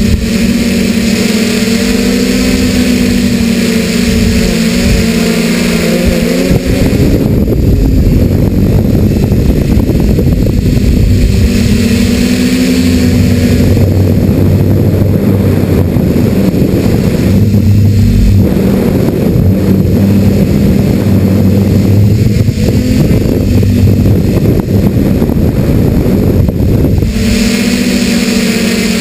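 Quadcopter's electric motors and propellers buzzing, heard from the camera on board, their pitch shifting up and down with the throttle. From about seven seconds in until near the end, a heavier rushing noise from wind over the microphone covers the buzz during fast flight; the buzz is steadier at the start and again at the end.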